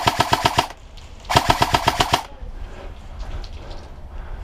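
Airsoft rifle firing two rapid full-auto bursts, the first cut short within the first second and the second lasting about a second, each a fast even string of sharp shots.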